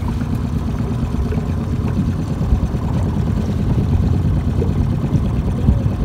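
Boat engine idling with a steady low rumble.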